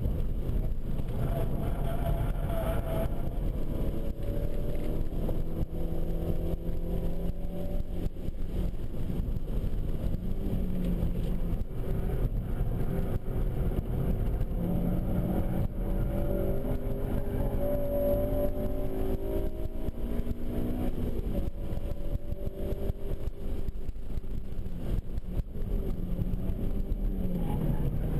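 Inside the cabin of a 2007 Honda Civic Si at track speed: its 2.0-litre i-VTEC four-cylinder engine revs up in long pulls, rising in pitch, and drops back between them, over steady road and wind noise.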